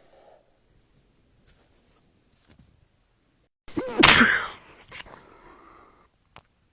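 A person sneezing once, loudly, about four seconds in, after a brief lead-in breath. It is one of a long run of sneezes that the sneezer blames on dust stirred up in the laundry room.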